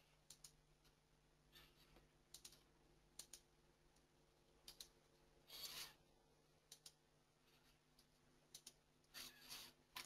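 Near silence with faint, scattered computer mouse clicks and a low steady hum, plus a slightly longer faint scrape about five and a half seconds in.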